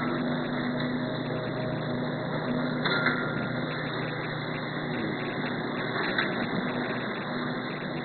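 Automatic flow-wrap packaging machine for plastic cups running: a steady mechanical hum with a couple of short sharp clicks, about three and six seconds in.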